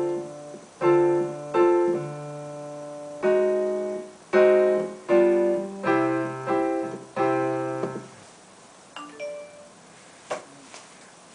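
Piano playing a short chordal phrase: about ten chords with bass notes, each struck and left to decay, under a simple melody. The playing stops after about eight seconds and is followed by a few light clicks.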